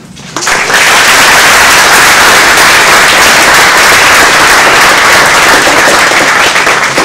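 Audience applauding, starting suddenly about half a second in, holding steady, and beginning to thin out near the end.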